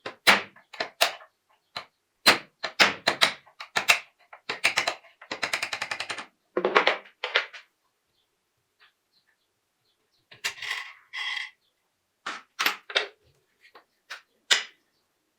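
Sharp metallic clicks and knocks in irregular runs, with a fast rattle about five seconds in and a short scraping burst a little past the middle, as tools and small parts are worked on a Colt 1911 pistol.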